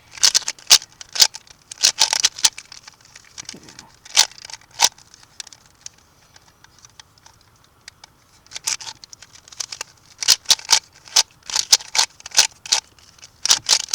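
Plastic 2x2 Rubik's cube being turned by hand: quick runs of sharp clicking as the layers snap round, a pause of a few seconds in the middle, then a faster run of turns near the end as the solve is finished.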